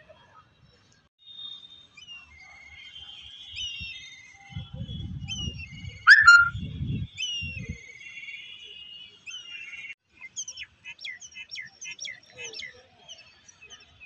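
Birds chirping and whistling, many short calls overlapping throughout, with a single loud, sharp sound about six seconds in. From about four and a half to eight seconds in, a low rumble of wind on the microphone comes and goes.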